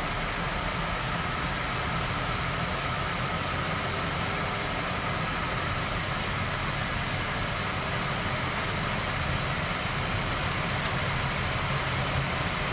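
Steady road and engine noise of a 2016 Honda Vezel RS driving along, heard from inside the cabin: an even hum and tyre rush that holds level throughout.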